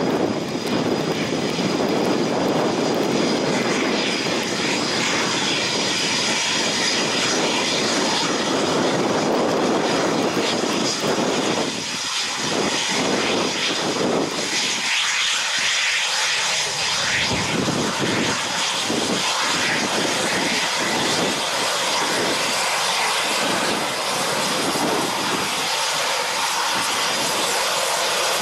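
Eurofighter Typhoon's twin jet engines running as it taxis: a loud, steady roar with a faint high whine. The deep part of the roar falls away about halfway through.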